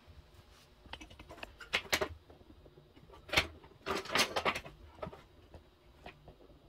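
Kitchen handling noises: scattered short clicks and clatters of cookware and utensils on a ceramic hob. A cluster comes about two seconds in and a busier run falls just past the middle.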